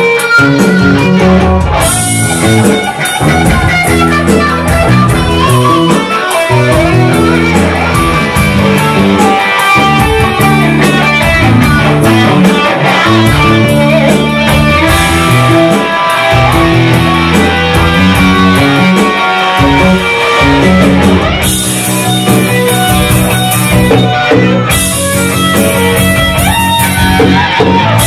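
Live band music: a lead line on electric guitar, played high up the neck, over a bass and rhythm backing with no singing.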